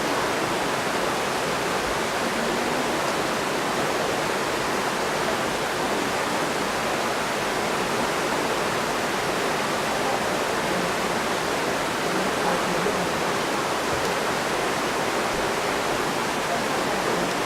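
Waterfall rushing below, a steady even roar of falling water.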